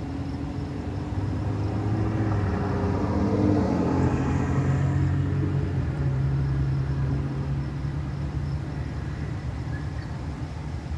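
A motor vehicle's engine passing by, growing louder to a peak about four seconds in, its pitch dropping slightly as it goes by, then slowly fading away.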